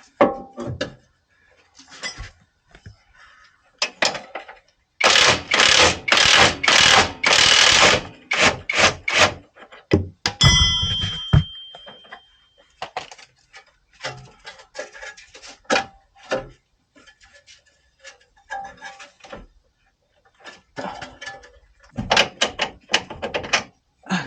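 Hand tools working on metal suspension and axle parts: scattered clanks and knocks, a run of loud rapid strikes in the middle, and a hard metal blow a little past the middle that leaves the metal ringing for about two seconds.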